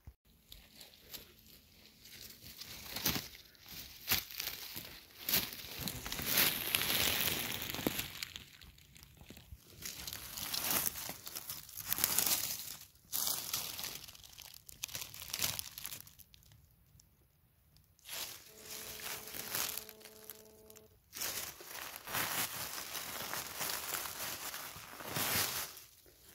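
Dry fallen leaves and litter crunching and crackling in irregular bursts under footsteps and a hand brushing through them, with a lull about two-thirds through.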